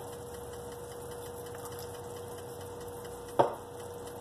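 A steady electrical hum, with one sharp knock about three and a half seconds in.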